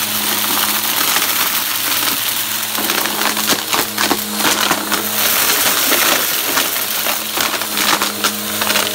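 Bissell PowerForce Helix upright vacuum cleaner running steadily while sucking up dirt, glitter and coins from carpet, the debris rattling and clicking through the brush roll and hose.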